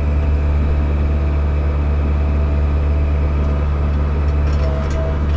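Cat 305 mini excavator's diesel engine running steadily at a constant speed, a low even hum. A thin steady whine comes in near the end.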